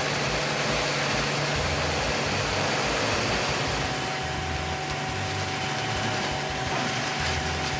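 Bandit Beast 2680 horizontal grinder running steadily, its large diesel engine under a constant drone, with a faint steady whine joining about three seconds in.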